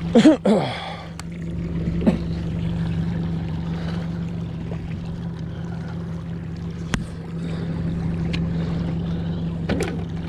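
Mercury outboard motor running steadily at trolling speed, a constant even hum. A loud, short sound with a sliding pitch comes right at the start, and a few sharp clicks follow later.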